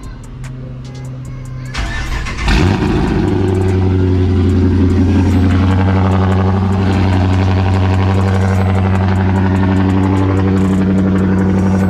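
A 2019 Dodge Charger R/T's 5.7-litre Hemi V8 cold-starting. The starter cranks about two seconds in, and the engine catches with a brief rev flare before settling into a steady idle.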